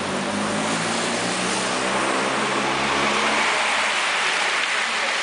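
A bunch of racing bicycles sweeping past close at sprint speed, a steady rush of tyres and air that swells about three and a half seconds in. A motor vehicle's engine runs underneath.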